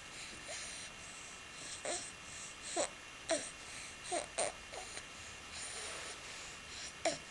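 A baby making short cooing and babbling sounds, several brief ones sliding in pitch between about two and five seconds in and one more near the end.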